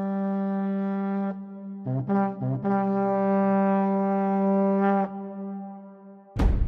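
Background music: long held notes with a few short notes between them, fading out, then a sudden loud hit near the end.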